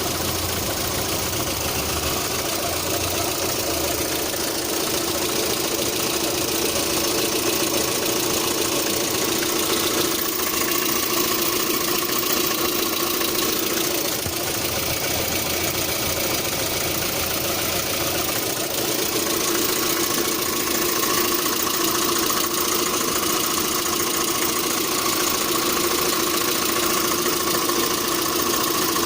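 A 1.6-litre eight-valve petrol engine idling with a knock, which the owner reports at idle and sometimes when throttle is added after starting. The running is steady, getting slightly louder about two-thirds of the way through.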